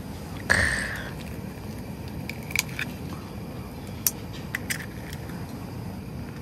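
Meal-kit food packaging and containers being handled: a short rustle about half a second in, then a few light clicks and taps.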